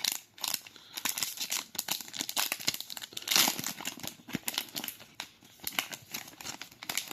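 Trading card booster pack wrapper crinkling and being torn open, a steady run of crackles with the loudest rip about three and a half seconds in.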